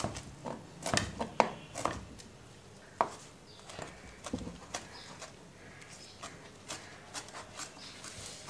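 Chef's knife chopping fresh coriander on a plastic cutting board: a quick run of sharp knocks in the first two seconds and one more about three seconds in, then lighter, scattered taps.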